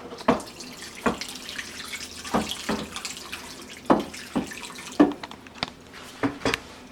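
Hot water running and splashing in a large bowl as cut pork is washed in it, with a string of sharp splashes and knocks as the meat is moved.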